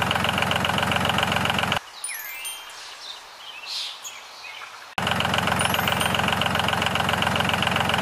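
A motor running steadily with a fast rhythmic pulse, cut off abruptly about two seconds in. Birds chirp in the quieter stretch that follows, until the motor sound comes back abruptly about five seconds in.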